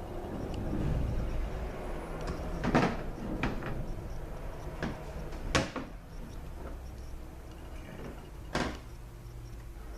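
Knocks and clinks of a Ford 6R80 transmission valve body being handled and lined up into place, five or so separate strikes with the sharpest about five and a half seconds in, over a low steady hum.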